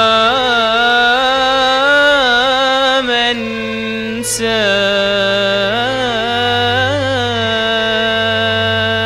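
Gulf Arabic song: a male voice sings long held notes with wavering melismatic ornaments over a steady low drone, with a short break about three seconds in.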